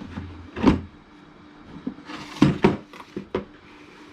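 Plastic latch and lid of a Taparia PTB-19 plastic tool box being worked: one knock, then about two and a half seconds in a quick run of five or six sharp plastic clicks and clacks.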